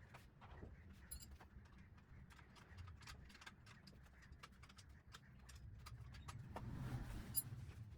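Faint, irregular small clicks and taps over a low rumble, getting louder toward the end with one sharp click about seven seconds in.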